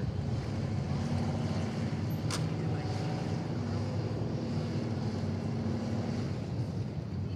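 Dirt-track race car's engine running steadily as it laps the oval, its note rising and dipping slightly. A single sharp click a little over two seconds in.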